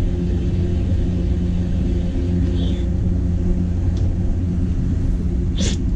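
A power tool, most likely an impact wrench, runs with a steady low buzzing rumble. It is turning the threaded rod of a bearing press tool to draw a new press-in front wheel bearing into the steering knuckle. A couple of light metallic clicks come in the middle, and a sharper one comes near the end.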